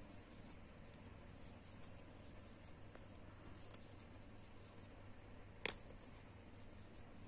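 Faint scratchy rustling and soft ticks of a metal crochet hook pulling yarn through stitches, with one sharp click a little over five seconds in.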